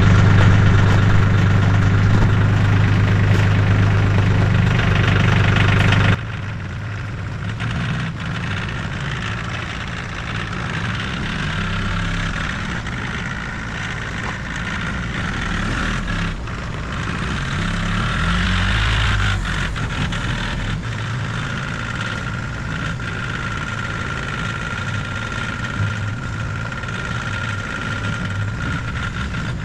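Tractor engine running steadily, loud and close with a strong low hum at first. About six seconds in it cuts abruptly to a quieter, more distant running sound.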